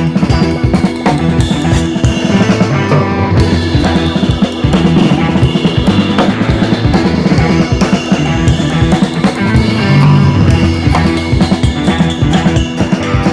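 Background music: a rock-style track with a steady drum-kit beat and guitar.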